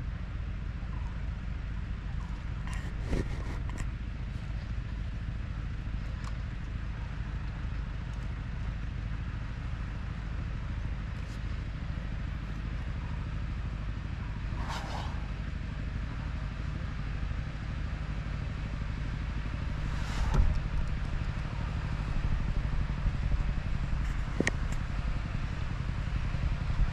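Steady low rumble of outdoor background noise, with two short hissing sounds, one about halfway through and one about two-thirds of the way through, and a few faint clicks.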